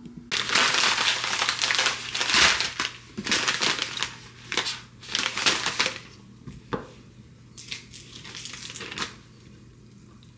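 Plastic food packaging crinkling and rustling as it is handled, loud and dense for the first several seconds, then lighter and sparser, with one sharp click partway through.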